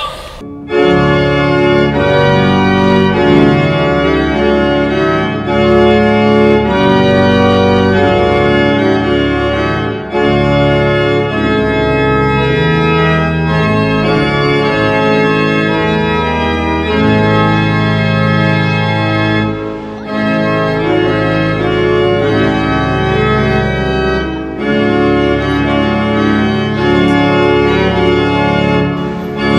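Organ playing slow, sustained full chords that change every few seconds, starting about half a second in.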